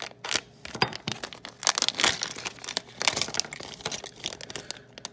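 Plastic LEGO minifigure blind-bag pouch crinkling as it is torn open and shaken out, with small plastic minifigure parts dropping out onto the table in a run of short clicks.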